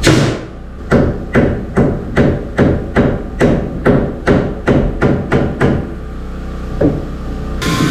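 Hammer blows on wood, as in nailing framing lumber: one strike, then a quick even run of about a dozen blows, about two and a half a second, and a single last blow.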